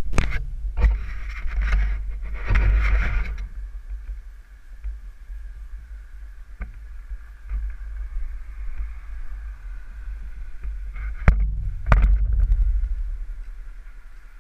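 Knocks and rubbing of an action camera being handled and set in place, over a steady low rumble. Sharp knocks at the start and again about 11 to 12 seconds in, with rustling handling in the first few seconds.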